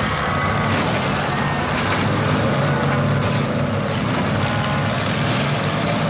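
Demolition-derby pickup truck engines running loud and steady, several at once, as the trucks push against each other.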